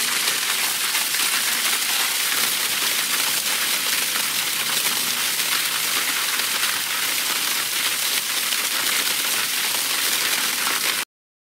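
Water rushing steadily down a sewer spillway, an even hissing rush with most of its energy high-pitched. It cuts off suddenly about eleven seconds in.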